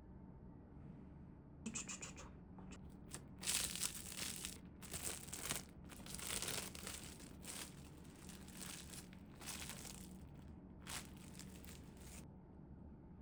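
Food wrapping crinkling and being torn open by hand, in a run of irregular bursts lasting about ten seconds.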